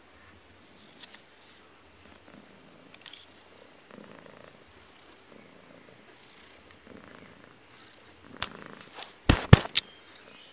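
Persian cat purring faintly in slow cycles close to the microphone. Near the end come several sharp knocks against the camera, much louder than the purr.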